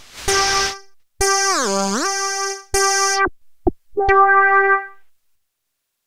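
Nexus 4 software synthesizer playing its "Pure Wave 03" synth preset: one bright, buzzy note struck over and over in short stabs. About a second in, one note is bent down about an octave and glides back up. The notes stop about five seconds in.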